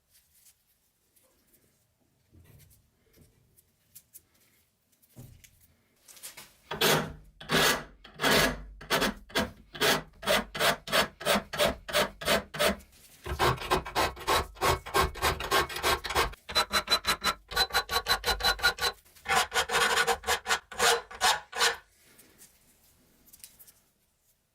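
Rhythmic back-and-forth scraping strokes of hand filing or abrading on a part of a rusty pipe vise, about two to four strokes a second. The strokes start about seven seconds in, speed up near the middle, and stop a couple of seconds before the end.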